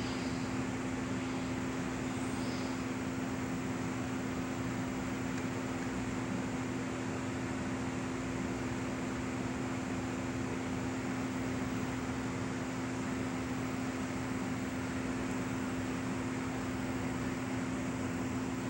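Faulty VHS tape audio: a constant electronic tone of two steady pitches over an even hiss of static, unbroken throughout. This is the defect the owner calls a beeping noise and static.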